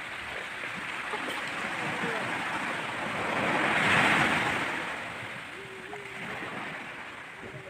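Small sea waves breaking and washing up a sand-and-pebble beach. The surf swells to its loudest about four seconds in, then draws back.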